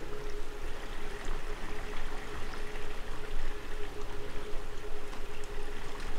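Indoor swimming pool water splashing and sloshing steadily, with a constant hum underneath.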